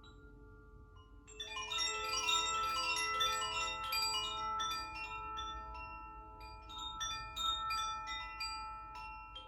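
Makino-style healing chimes struck by hand. A few notes are still ringing at first, then about a second and a half in comes a quick run of strikes, with many bright pitched notes ringing and overlapping. Scattered single strikes follow while the earlier notes sustain.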